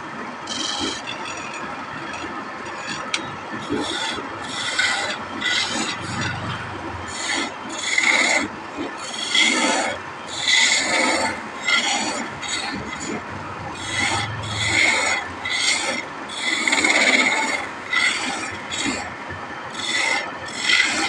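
A turning chisel cutting into a spinning wooden blank on a wood lathe, in a run of short rough scraping strokes, about one a second, as grooves are cut, over the lathe's steady running. The strokes begin a few seconds in and are loudest near the middle.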